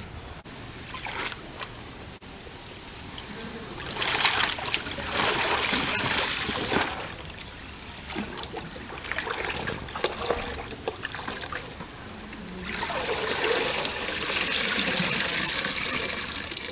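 Pond water sloshing and splashing as a woven bamboo basket of mangoes is dipped and shaken in it, then trickling and draining through the weave as the basket is lifted. The splashing comes in two spells, a short one about four seconds in and a longer one from about two-thirds of the way through.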